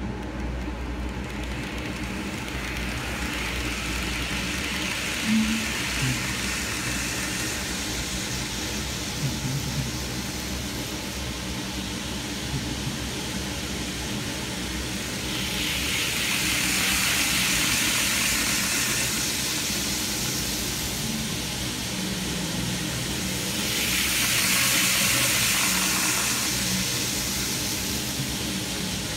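Model Shinkansen E2 train running on its track: a steady whir of motor and wheels that swells and fades twice as the train passes close, with a few light clicks early on.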